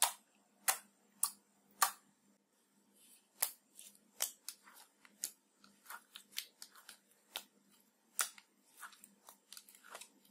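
Glitter slime pressed and squeezed by hand, giving a string of sharp, sticky clicks and pops at irregular intervals, the loudest four in the first two seconds.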